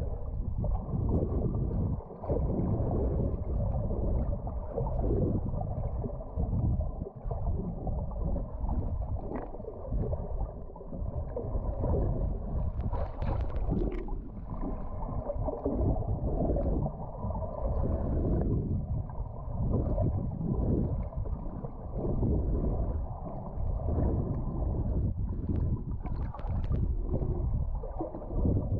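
Muffled water noise from a camera held underwater, rising and falling every second or two as the swimmer moves through the current. A few faint clicks come through about halfway and near the end.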